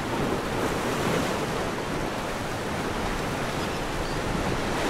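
Surf breaking and washing onto a sandy beach: a steady rushing of waves.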